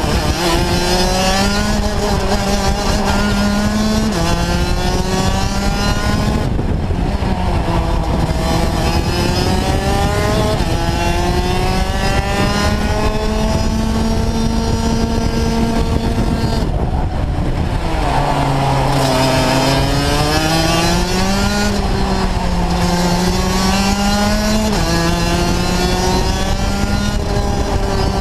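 Rotax Max DD2 kart's 125 cc two-stroke engine heard onboard at racing speed, its pitch climbing steadily and then dropping sharply several times, with the deepest dip about two-thirds of the way through before it climbs again.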